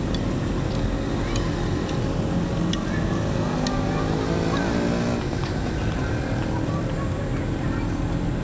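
Street traffic noise: a motor vehicle's engine runs close by and drops away about five seconds in, over a steady low rumble with faint clicks and background voices.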